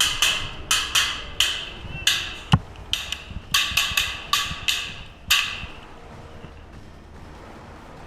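A rapid series of sharp airsoft shots, about two to three a second, each with a short ringing tail, stopping about five seconds in.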